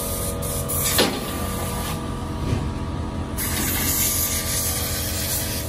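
A motor running steadily with an even hum and a hiss over it, and a sharp tick about a second in.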